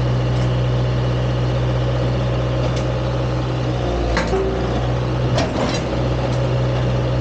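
Heavy engine idling steadily with a constant low hum, broken by a few sharp clicks or knocks, the loudest about four and five and a half seconds in.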